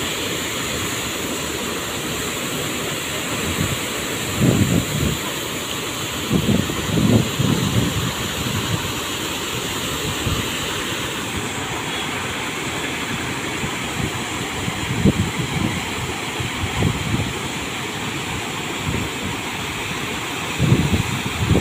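Heavy jets of water from a row of big drainage pumps' outlet pipes gushing and crashing into a river, a steady loud rushing roar. Gusts of wind buffet the microphone several times.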